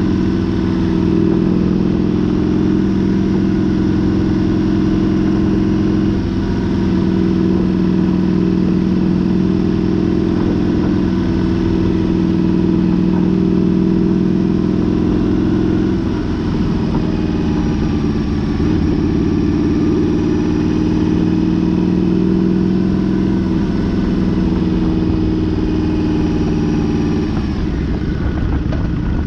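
Motorcycle engine running at road speed as the bike is ridden, a steady hum and rumble whose pitch shifts a few times with throttle and gear changes.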